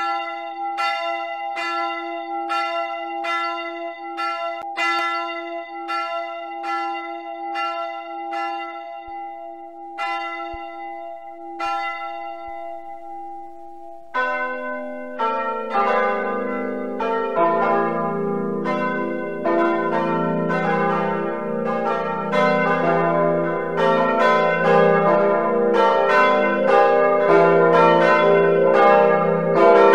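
Church bells played back in a computer bell-ringing simulator. A single bell strikes about once a second, its strokes thinning out. About halfway through, a full peal starts, with several deeper bells coming in one after another and swinging together, growing louder.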